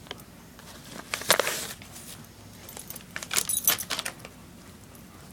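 Two short bursts of light jingling and rattling, about a second in and again about three and a half seconds in.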